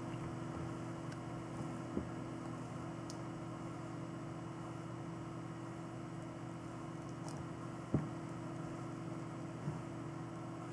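Fractal Design Kelvin S24 water-cooling pump running with a steady low hum, circulating coolant to purge air bubbles from a freshly filled loop. Two small knocks come about 2 s and 8 s in.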